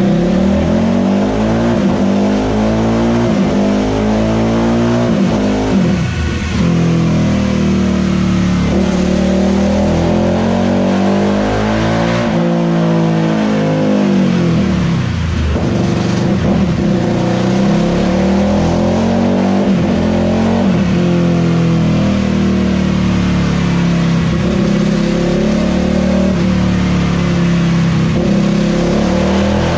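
Honda CRF450 single-cylinder four-stroke engine, built with a Racers Edge head, Web Cam camshaft and 14.3:1 piston, running on a dyno and being revved up and down over and over, with deep drops in revs about 6, 12, 15 and 20 seconds in.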